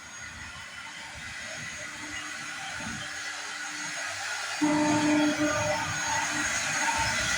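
CNC woodworking machine running, its spindle motor and cutting making a steady whirring hiss that gets louder a little past halfway through.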